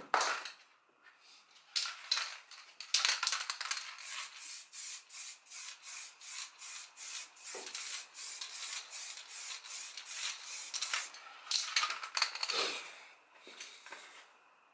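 Hand sanding of the filler on an Audi A3 8P front bumper: quick back-and-forth scratchy strokes, about three a second, with louder scrapes near the start and again near the end.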